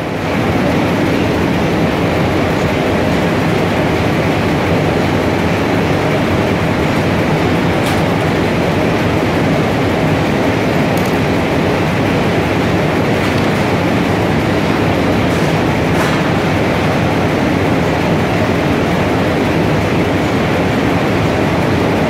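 Textile machinery running: a steady, dense mechanical clatter, with a few faint sharp clicks along the way.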